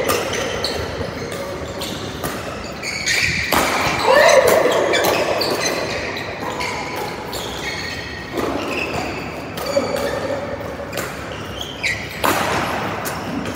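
Badminton doubles rally: rackets striking the shuttlecock in sharp hits about every second or so, with players' shoes squeaking on the court floor, echoing in a large hall.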